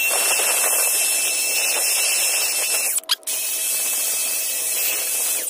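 Cordless drill spinning a wire brush wheel against a bolt's threads to scrub them clean, running steadily with a constant high whine, played back sped up. It cuts out briefly about three seconds in, runs again, and stops at the end.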